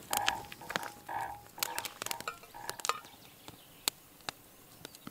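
Campfire crackling under a cook pot, with scattered sharp pops and a few soft metallic clinks from the pot in the first second and a half.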